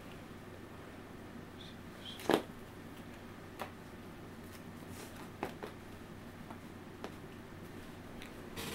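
Trading cards being handled and laid down on a table: a few light taps and clicks, with one louder knock about two seconds in, over quiet room tone.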